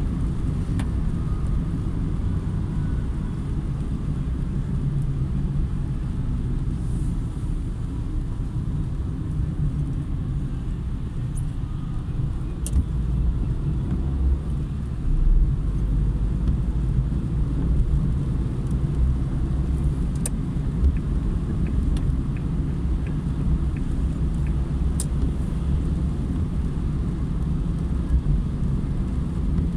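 A car driving on a city highway: steady low road and engine rumble, with a few faint clicks scattered through it.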